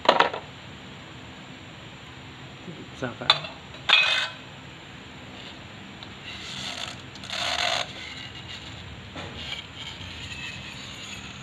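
Metal parts of a scooter's CVT variator clinking and clattering as they are handled and set down, with a few sharp clinks in the first four seconds. Two short scraping noises follow a little past the middle.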